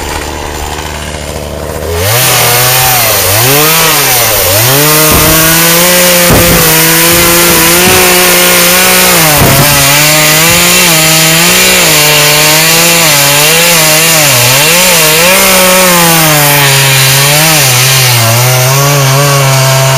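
Two-stroke chainsaw running at idle, then opened up about two seconds in and cutting through a thick log, its engine pitch dipping and recovering over and over as the chain bogs under load in the cut.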